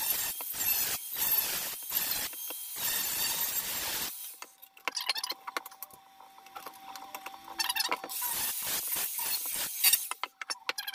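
Angle grinder cutting a boiler flue pipe to length, a steady high-pitched cutting noise that stops about four seconds in, then clicks and rattles of handling, with another loud noisy stretch about eight seconds in.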